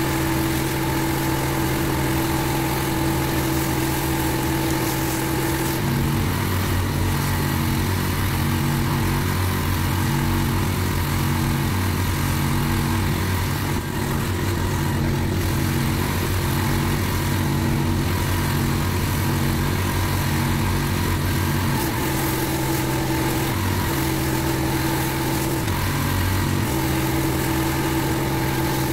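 Small petrol engine running steadily. Its note changes about six seconds in and goes back near the end.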